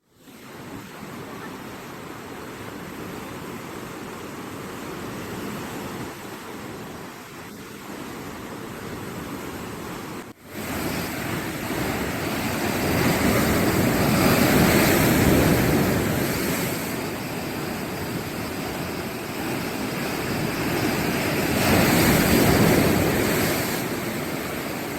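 East Sea surf: waves washing and breaking on the shore. The sound drops out briefly about ten seconds in, then comes back louder and swells up twice as bigger waves break.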